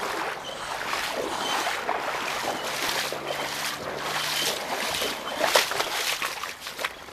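Floodwater sloshing and splashing as a person wades through it, surging with each stride about once a second.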